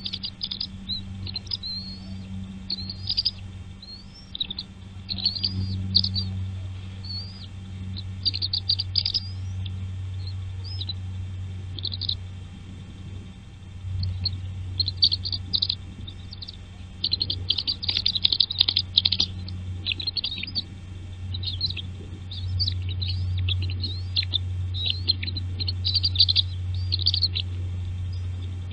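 Small birds chirping: quick series of short, high, thin chirps that come in clusters, densest about two-thirds of the way through. A steady low hum runs underneath.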